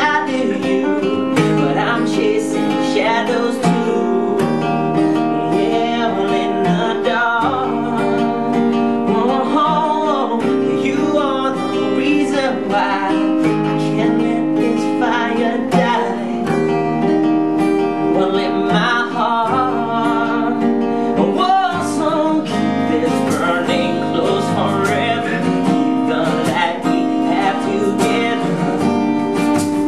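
Pop band playing live: strummed acoustic guitar with a sung melody over it.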